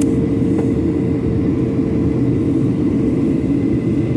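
Steady cabin drone of a Boeing 737-800 in flight: a constant rush of engine and airflow noise heard from inside the cabin, with a faint steady hum on top.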